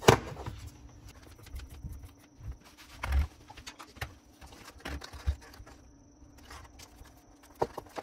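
Small clicks, taps and rustles from hands handling a circuit board and its wires while the reed switch's leads are fitted into the board's terminals. A sharp click right at the start is the loudest, followed by scattered lighter clicks and knocks.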